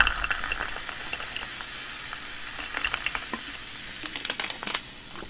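Freshly poured cola fizzing in a glass mug: a steady crackling hiss of bursting bubbles that eases off after the first second, with a few small clicks in the second half.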